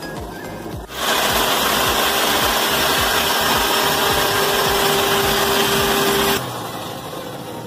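Table saw cutting through a wooden board: a loud, steady rush of saw noise with a steady hum in it that starts about a second in and stops suddenly near the end.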